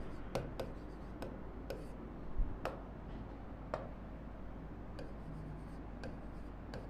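Stylus tapping and stroking on an interactive display board while writing: irregular light clicks and taps.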